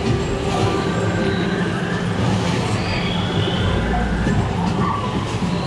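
Ambient soundscape of the Na'Vi River Cruise boat ride: a steady low rumble with short chirping creature calls scattered over it.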